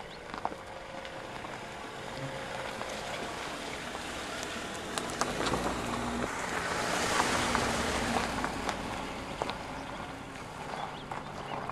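Mercedes-Benz GLC SUV driving past on a dirt and gravel track, its engine and tyre noise swelling to a peak about seven seconds in and then easing as it moves away, with scattered clicks and crunches of stones under the tyres.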